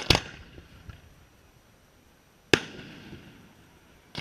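Fireworks display: two loud firework bangs about two and a half seconds apart, each trailing off in an echo, with a few small crackling pops after the first.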